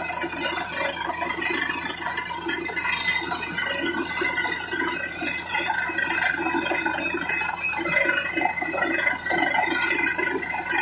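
Truck-mounted borewell drilling rig running as it drills: a steady machine whine made of several held tones, with irregular clattering over it.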